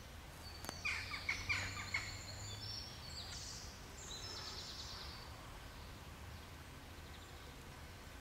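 Birds calling outdoors: a quick series of about five loud calls that drop in pitch, followed by thin high whistled notes and a short trill, over a faint low hum.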